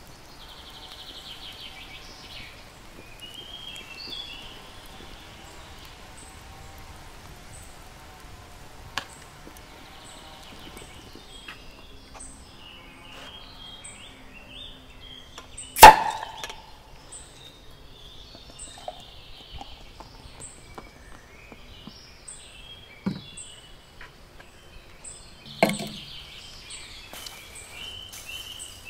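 Garden ambience with small birds chirping on and off, broken by a few sharp knocks; the loudest knock comes about halfway through, with fainter ones later.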